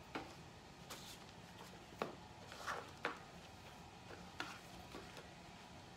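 Paper leaflet rustling as it is pulled out and unfolded by hand, with a handful of short, sharp taps and clicks from handling, the longest rustle a little over halfway through.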